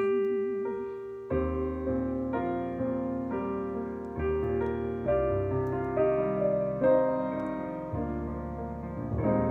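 Piano accompaniment playing a slow instrumental interlude of sustained chords, struck every half second to a second. The end of a held sung note with vibrato fades out in the first second.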